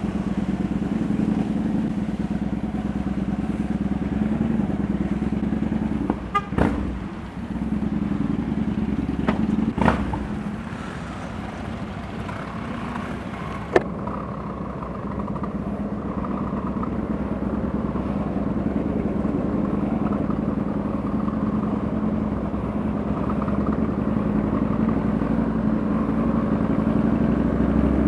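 Motorcycle engines running at riding speed, heard from a bike-mounted camera, with a steady low hum and some wind noise. A few short, sharp sounds break in about six to ten seconds in, and once more about halfway.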